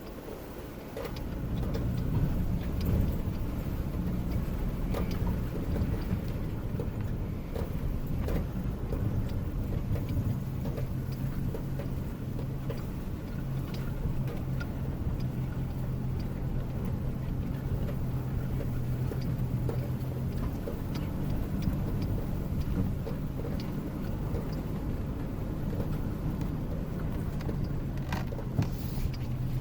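Motor vehicle driving along with its engine running steadily, getting louder about a second in as it pulls away, with scattered knocks and rattles from the ride.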